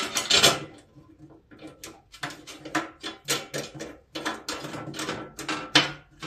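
Short metallic clicks and clanks, a few a second at irregular spacing, from a wrench turning in the bolt that holds the deck plate on a Husqvarna zero-turn mower.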